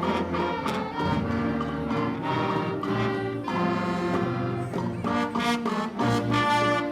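A concert band playing, with brass and sustained chords over percussion strokes.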